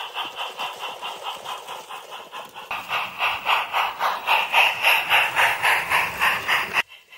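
0 gauge model of the GWR Hall-class locomotive 'Trematon Hall' running with its train, giving an even rhythmic beat about four or five times a second. The sound gets louder about three seconds in as the train passes close by, and drops sharply just before the end.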